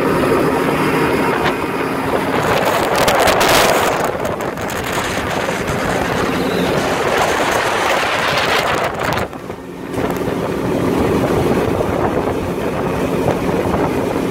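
A tri-toon pontoon boat running at about 43 mph on its 250 hp Yamaha outboard: a steady outboard drone under loud wind noise on the microphone and water rushing past the hull. The wind noise briefly drops away about two-thirds of the way in.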